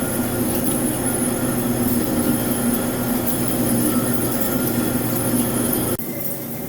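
CNC vertical lathe turning an aluminium 6061 part: steady machining noise with a thin high-pitched tone over it, dropping abruptly in level about six seconds in.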